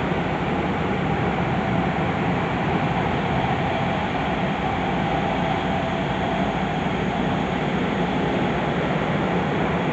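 Tobu 9050 series electric train running steadily through a subway tunnel, heard from inside the passenger car: a constant rumble of wheels and running gear with a faint steady hum above it.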